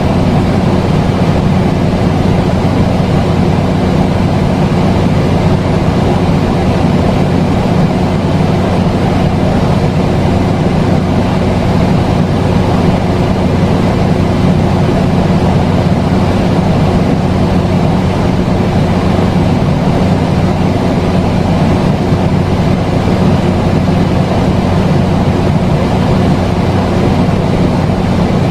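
A steady, unchanging low rumble with a constant hum running through it.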